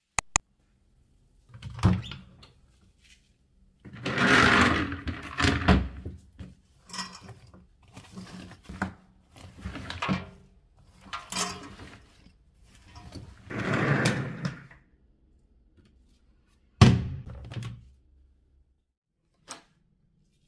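Household handling sounds while laundry is worked at a front-loading washing machine: irregular rustling of clothes being moved, a few light clicks and one sharp knock near the end.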